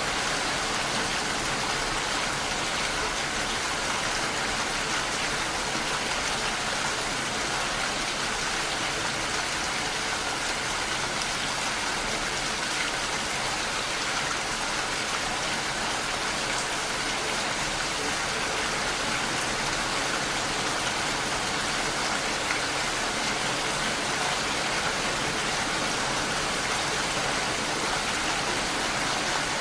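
Steady rain falling, an even hiss of drops with no change in intensity.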